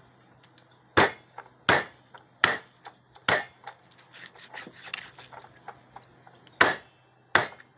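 A large chopping knife hacking into a small wild boar carcass on a plastic cutting board: four sharp chops about three-quarters of a second apart, a spell of light knocks, then two more chops near the end.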